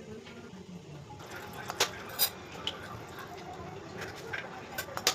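Kitchen utensils clinking against cookware: a series of sharp, separate clinks, the loudest about two seconds in.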